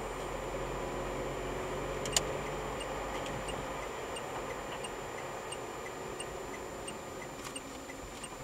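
Steady road and engine noise heard inside a moving car's cabin. A single sharp click a little after two seconds in, then a turn-signal indicator ticking evenly about every two-thirds of a second as the car nears a junction.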